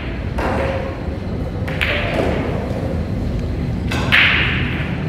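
Pool balls and cue knocking on a billiard table over the steady low hum of a busy pool hall, with the loudest knock about four seconds in as a shot is played.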